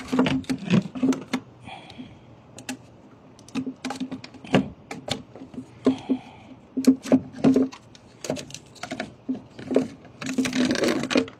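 Irregular clicks and knocks of small parts and tools being handled, the sort made while refitting an electrical box and its cover. A short rush of noise comes near the end.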